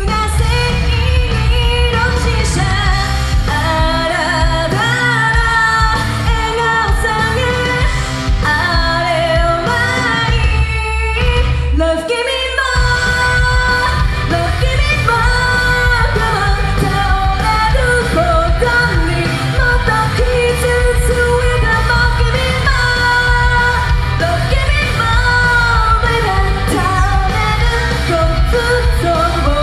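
A woman singing a Japanese pop-rock song live into a handheld microphone over loud backing music with heavy bass and drums. The bass and drums cut out for about a second around twelve seconds in, then come back.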